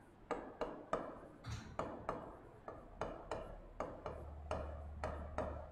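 Handwriting on a board: a faint run of short taps and scratches, about three a second, as a word is written stroke by stroke.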